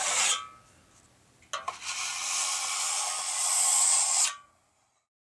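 Tool sound effects in a title sequence: a scraping rush that dies away in the first half-second. A click about a second and a half in starts a steady, hissy rasping scrape that lasts nearly three seconds and cuts off abruptly.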